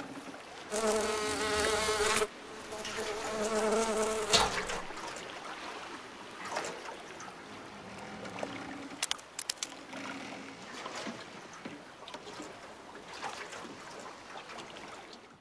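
Insect buzzing: a wavering, high-pitched hum heard twice in the first few seconds, each lasting about a second and a half. It is followed by a soft steady hiss with a few sharp ticks.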